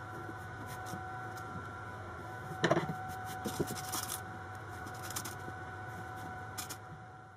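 Cotton fabric being handled and rustled on a table, with scattered small taps and a brief louder rustle about two and a half seconds in, over a steady faint hum.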